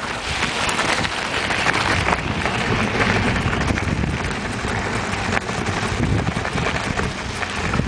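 Bicycle tyres rolling fast over a gravel road, a steady crunching rattle of loose stones, with wind buffeting the microphone.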